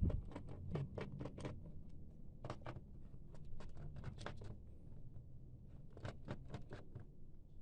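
Clusters of quick, light clicks and taps from handling a Lenovo G40 laptop's plastic case and parts as it is taken apart.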